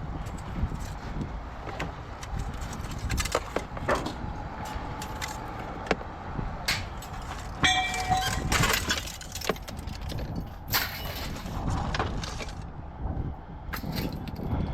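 Scrap-yard vehicle noise: a steady low engine rumble with scattered metallic knocks and rattles. A brief squeal comes about eight seconds in, and a harsher hissing clatter follows for a couple of seconds.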